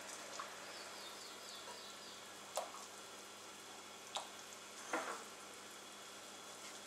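Vegetables being put into a stainless steel pot of cold water with pork ribs: three short splashes and knocks against the pot over a steady faint hiss.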